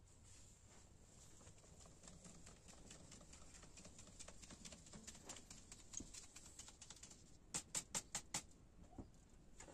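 Flour being sifted by hand through a round wooden-rimmed sieve shaken over a metal pot: a faint, fast rustling patter. Near the end comes a quick run of six or so sharp taps, about five a second.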